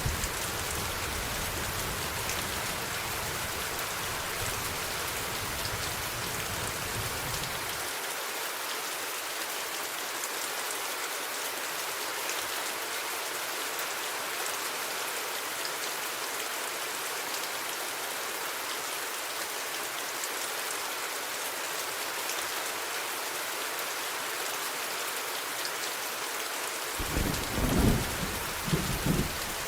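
Steady rain falling, an even hiss throughout. A low thunder rumble cuts off about eight seconds in, and a fresh peal of thunder breaks near the end.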